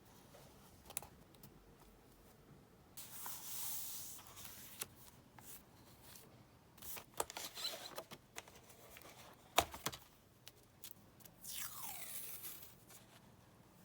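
Paper stickers and masking tape being peeled and torn on a diary page, in two longer rips. Scattered light taps and crinkles fall between the rips.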